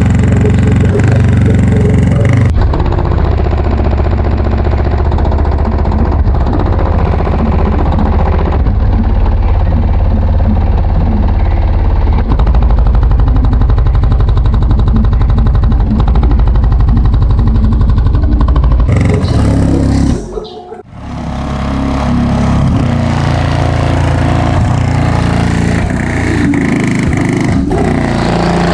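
Car-audio subwoofers playing rap music at very high volume, dominated by deep bass. The sound cuts to a different clip a couple of seconds in, and drops out briefly about 20 seconds in.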